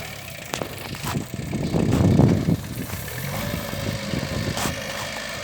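Engine of a concrete mixer machine running steadily. It gets louder for a moment about two seconds in, and a few sharp metallic knocks come over it.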